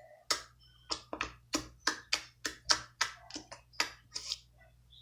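Slime being squeezed and worked in the hands, giving a quick run of sharp popping clicks, about three a second, that stop near the end.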